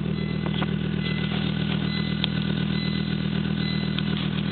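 Volvo S70 T5's turbocharged five-cylinder engine idling steadily through a 3-inch turbo-back exhaust.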